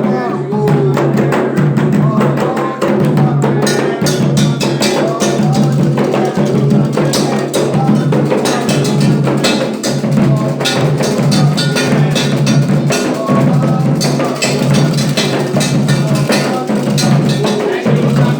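Ilú drums playing a steady, dense rhythm of sharp strikes.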